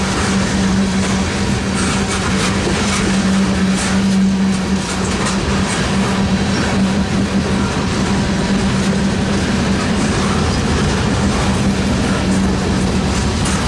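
A train running along the track: a steady, loud rumble with a constant low drone and faint scattered clicks.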